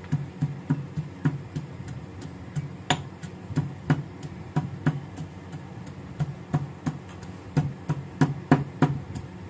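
Stone pestle pounding dry fruits in a stone mortar, coarsely crushing them: a steady run of sharp knocks, two or three a second.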